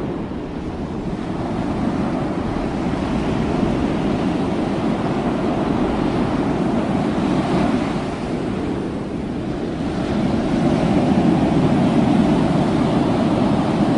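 Ocean surf rushing steadily as waves break, the rush swelling louder near the end.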